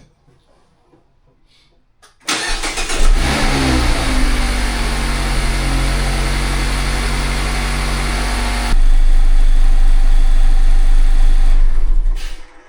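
Mazda MX-5 ND3's four-cylinder engine started about two seconds in, its pitch settling quickly into a steady idle, run to circulate freshly changed oil before the dipstick check. About nine seconds in the sound turns louder and noisier, then it stops just before the end.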